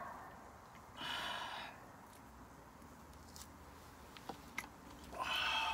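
Breathy exhalations after a swallow of makgeolli, one about a second in and another near the end, with a few light clicks between them.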